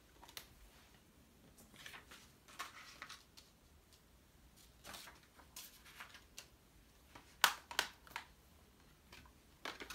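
Handling of a plastic Blu-ray case and its discs: scattered rustles and light clicks, with one sharp plastic click about seven and a half seconds in.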